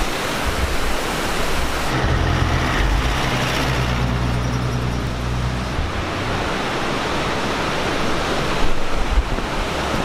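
Steady rush of a waterfall and river, with a vehicle engine humming past from about two to six seconds in.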